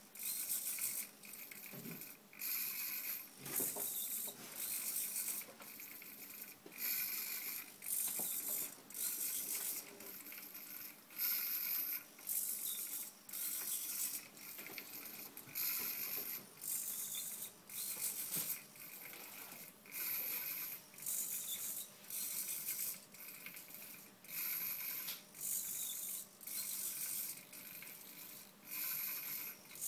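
Hobby servo motors in a small Arduino-driven robot arm whirring in short, repeated bursts, about one a second, as the arm swings back and forth.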